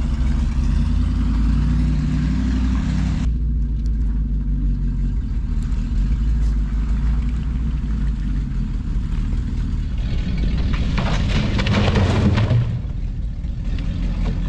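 A large machine engine running steadily with a low hum. A louder rushing, crackling noise comes in over it for about two seconds, some ten and a half seconds in.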